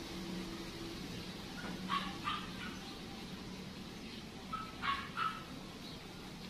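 A dog barking: two pairs of short barks about three seconds apart, over a steady low hum.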